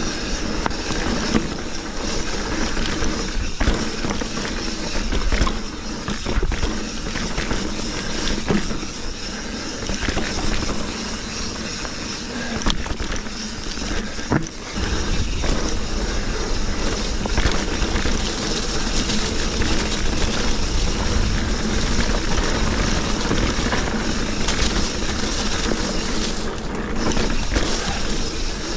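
Mountain bike being ridden over damp dirt singletrack: steady tyre and wind noise with the bike rattling over the bumps and occasional sharp knocks. The low rumble grows stronger about halfway through.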